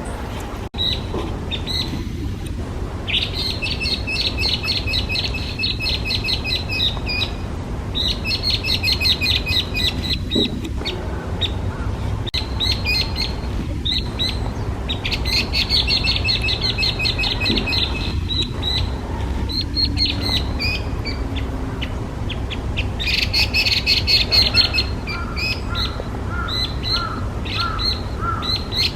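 Chinese hwamei (Garrulax canorus) singing: loud runs of rapid repeated notes, each bout lasting a few seconds with short pauses between. A steady low rumble runs underneath.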